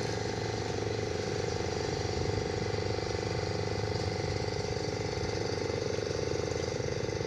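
Boat engine running steadily at constant speed, a loud drone with a fast, even pulsing chug.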